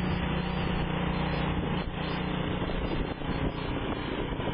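An engine running steadily with an even hum that changes slightly about two seconds in.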